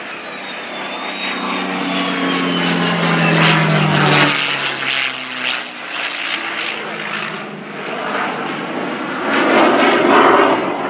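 A P-51 Mustang's Merlin V-12 and an F-16's jet engine fly past together. The propeller drone falls in pitch as they pass, loudest about four seconds in, with a high jet whine sliding down alongside. Near the end the F-16's jet noise swells again on its own.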